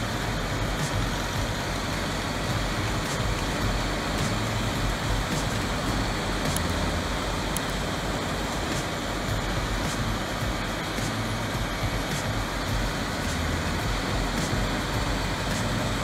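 Vermeer HG6000 horizontal grinder, its 755-horsepower engine and grinding drum running steadily while chewing through brush and roots: a dense, even machine noise.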